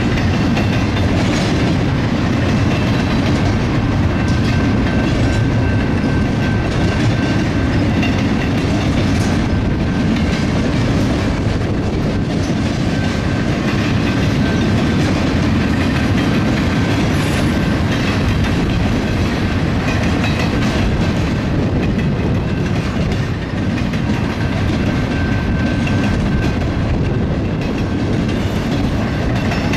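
Double-stack intermodal container train rolling steadily past: a continuous heavy rumble of the well cars with the clickety-clack of wheels over rail joints and the crossing.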